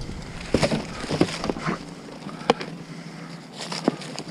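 Junk being rummaged through in a dumpster: a scattered series of knocks and clatters as items are picked up and dropped, the sharpest about two and a half seconds in. A low rumble fades out in the first second and a half.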